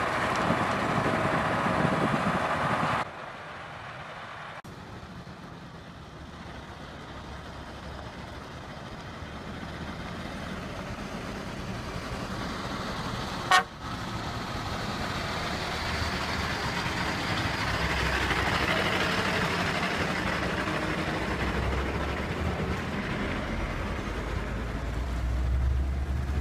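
Heavy-haulage MAN truck pulling a loaded multi-axle lowboy trailer, its diesel engine and tyres growing louder as it approaches and passes close by, with a deep rumble near the end. In the first three seconds a loud steady horn-like tone sounds and then cuts off suddenly; a single sharp click comes about halfway through.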